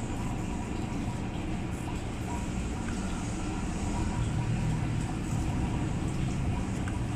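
Steady low rumble of background noise, unchanging throughout.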